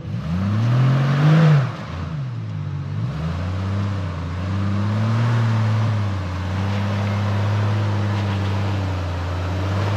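Off-road vehicle engine revving up and easing off twice, then running steadily under load while climbing a steep, rocky, sandy slope.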